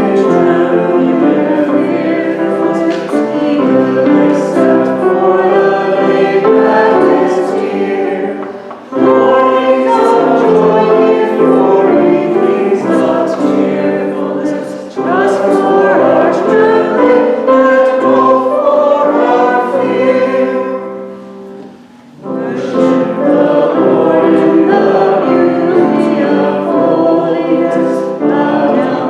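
Choir singing with accompaniment in phrases, with brief pauses between them.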